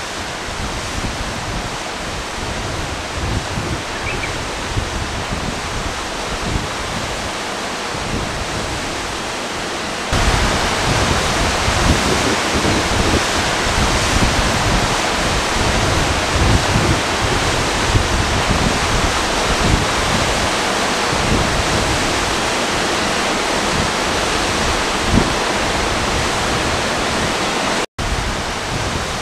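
Waterfall: a steady rush of falling water that gets louder about ten seconds in and cuts out for a moment just before the end.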